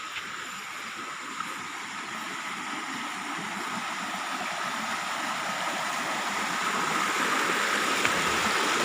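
Rushing river water, a steady noise that grows steadily louder as the stream is approached.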